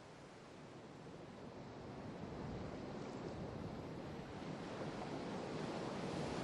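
Sea waves washing onto a shore, a steady rushing surf that fades in and grows louder.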